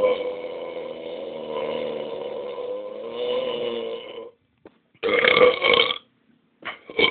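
A person burping on purpose: one long, drawn-out belch that carries on for about four seconds and then stops. A shorter burp follows about a second later, and another begins near the end.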